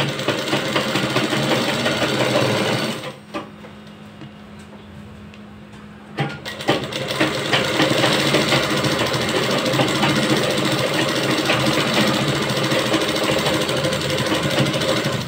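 Sewing machine stitching along a salwar waistband. It runs fast for about three seconds, stops for about three seconds while a low steady hum carries on, then runs steadily again from about six seconds in to the end.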